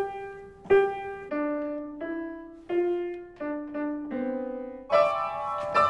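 Upright piano played slowly, one note at a time: about eight single notes, mostly stepping down in pitch, then fuller chords struck near the end.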